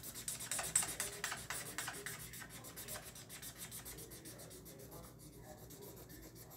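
Felt-tip marker scribbling back and forth on paper to colour in an area, about eight quick scratchy strokes a second, loudest in the first two seconds and then softer.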